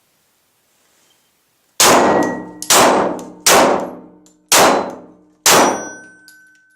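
Five 9mm shots from a Glock 17 pistol, about one a second, each hit ringing off a steel target with a metallic clang that dies away.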